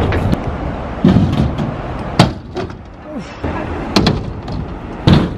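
Scooter wheels rolling on a concrete skatepark, with several sharp clacks of scooters landing and hitting the ground. The loudest clack comes about five seconds in.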